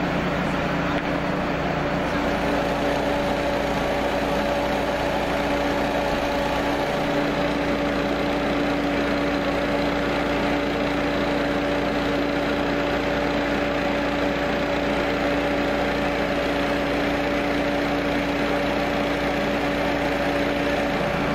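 Petrol-engined positive-pressure ventilation fan running steadily at constant speed, an even engine hum with no change in pitch or level.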